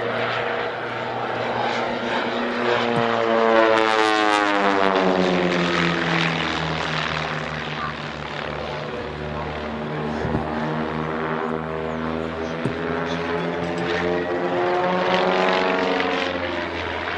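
Two Pitts Special aerobatic biplanes flying in close formation, their piston engines and propellers droning steadily; the engine note falls in pitch through the first half and rises again later as they fly the manoeuvre.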